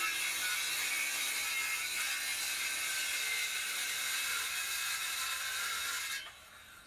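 Power saw cutting a 2-inch strip from an OSB board, a steady high-pitched cutting noise that dies away about six seconds in.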